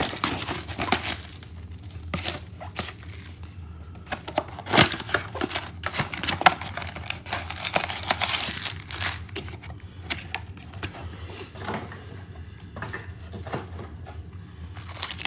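A cardboard blaster box of trading cards being torn open by hand, with irregular ripping and crackling, then the foil-wrapped card packs inside crinkling as they are pulled out and handled.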